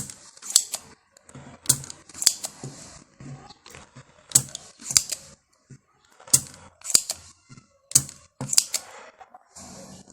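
Hand tools working on an LG washing machine circuit board while the old power IC is being removed: repeated sharp clicks, each with a brief high hiss, coming mostly in pairs every couple of seconds.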